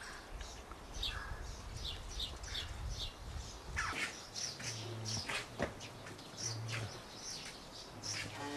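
Small birds chirping: a steady run of short, high, downward-sliding chirps, several overlapping at a time.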